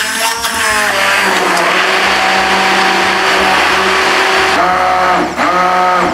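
Hand-held immersion blender running in a stainless steel bowl, puréeing watermelon chunks with sugar, lemon juice and water into a liquid. The motor's whine dips in pitch briefly twice near the end, then the blender stops.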